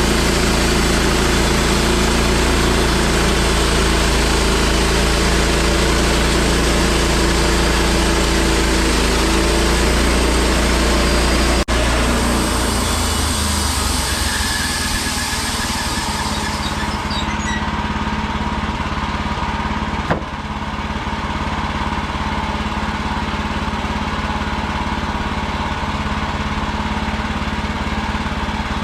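Engine of a portable bandsaw mill running steadily. The sound changes abruptly about twelve seconds in, and the high hiss fades a few seconds later.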